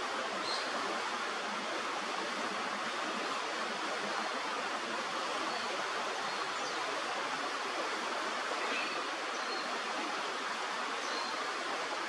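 Mountain river water rushing steadily, an even hiss of flowing water.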